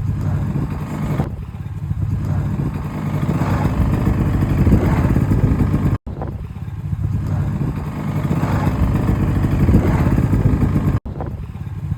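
Snowmobile engine running, its revs rising and easing back twice, with the sound cutting out abruptly for an instant twice.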